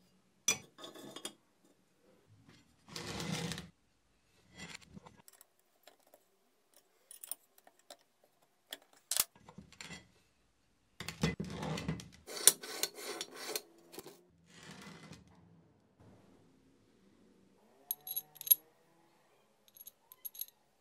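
Metal parts being handled and worked by hand: scattered clinks and knocks with a few short scraping rubs, and two bright metallic clinks near the end.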